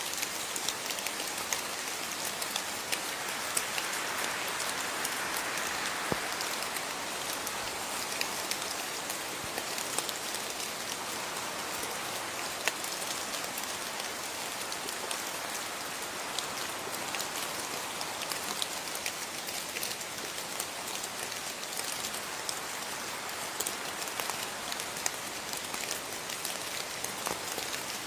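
Steady rain falling, a dense even hiss of drops with many fine individual drop ticks.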